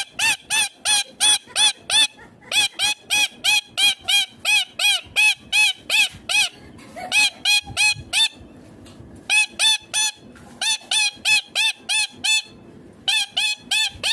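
Indian ringneck parakeet calling over and over, about three calls a second, each note rising and falling in pitch. The runs break off briefly a few times.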